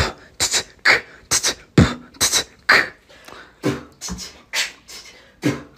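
Beatboxing: mouth-made kick-drum, snare and hi-hat sounds in a steady rhythm of about two beats a second.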